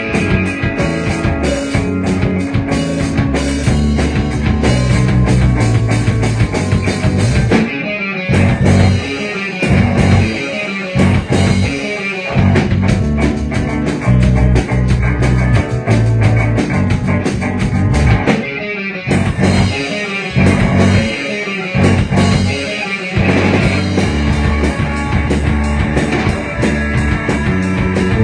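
Rock band playing an instrumental passage on guitar, bass and drum kit. The band stops short for a moment about eight seconds in and again around eighteen seconds, with choppy stop-start hits after each break.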